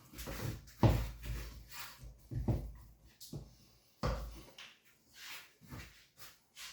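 Kitchen handling sounds: a string of irregular knocks and bumps, like dishes and cookware being set down or cupboard doors being shut, the loudest about a second in and again at about four seconds.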